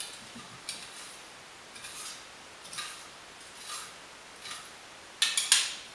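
Spoon stirring sugar into a bowl of stew: soft scraping strokes about once a second, then a quick run of sharp clicks near the end.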